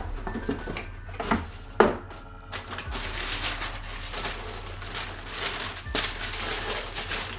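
A cardboard shoebox being opened: a few knocks as the lid comes off, then steady crinkling and rustling of the paper inside as it is handled.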